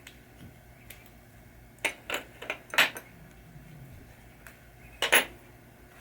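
Small metal parts of a pinball saucer kicker assembly clinking and clacking as they are handled and taken apart: a quick cluster of sharp clicks about two to three seconds in, then a louder double clack about five seconds in.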